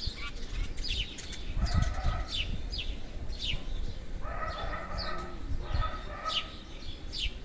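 Garden birds calling: short, high, falling chirps repeat about twice a second, and longer, lower calls come about two seconds in and again from about four to six seconds.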